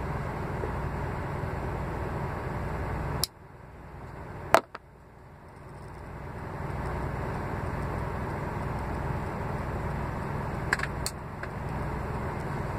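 Steady low mechanical hum inside a parked truck's cab, broken by a few sharp clicks. After a click about three seconds in, the hum drops away and comes back gradually over a couple of seconds.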